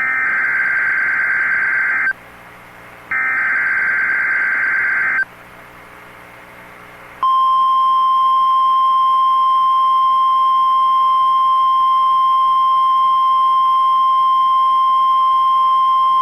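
Emergency Alert System tones on NOAA Weather Radio. First come two bursts of the SAME digital header, each a harsh buzzing data screech of about two seconds, a second apart. About two seconds later the steady 1050-hertz weather radio warning tone sounds for about nine seconds, the signal of a warning-level alert.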